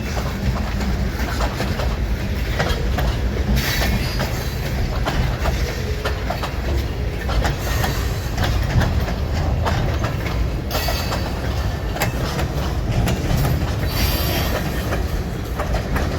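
Freight cars rolling past close by: a steady rumble with wheels clicking over rail joints, and a few stretches of high-pitched wheel squeal.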